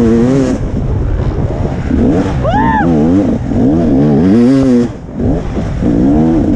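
KTM 300 XC two-stroke dirt bike engine revving up and down as the throttle is worked on and off, close up, with a short drop in revs just before five seconds in. A brief higher rise and fall in pitch sounds about two and a half seconds in.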